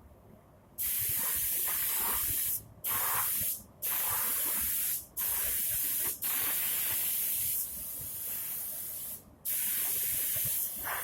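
Pressurised spray hissing loudly in long bursts, with about five brief cut-offs; it is quieter for a stretch in the second half.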